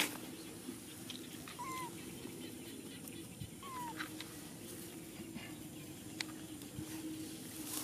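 Baby macaque giving three short, high coo calls, each a brief squeak that dips slightly in pitch: one about two seconds in, one about four seconds in and one at the very end, over a steady low hum.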